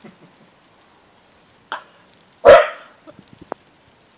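A dog gives one loud bark about two and a half seconds in, with a shorter, sharper yap a little before it. These are play barks from two dogs chasing each other.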